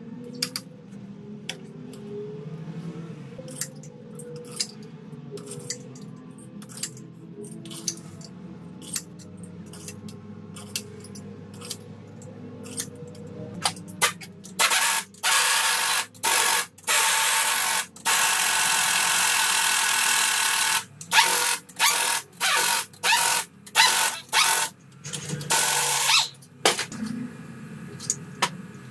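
Light metal clinks of parts being fitted on an engine's cylinder head. About halfway through, a hand-held pneumatic wrench starts running bolts down on the head in a string of short bursts, one of them lasting about three seconds.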